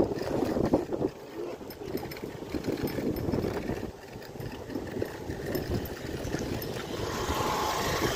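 Wind rumble and buffeting on the microphone of a moving bicycle. About seven seconds in, a motorcycle engine grows louder as it comes up from behind.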